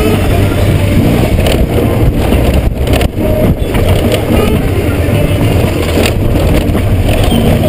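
Honda GoldWing GL1500's flat-six engine running steadily at low speed as the bike rolls over a rough gravel track, with road and wind noise, heard from a helmet-mounted camera. The loudness dips briefly a couple of times near the middle.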